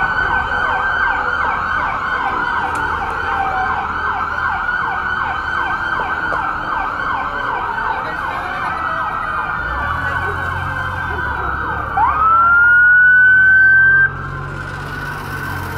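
Several emergency-vehicle sirens sound at once, their fast yelping sweeps overlapping. About twelve seconds in, a nearer siren rises steeply and holds a high note for about two seconds, the loudest part, then cuts off suddenly. A low rumble runs beneath from about ten seconds in.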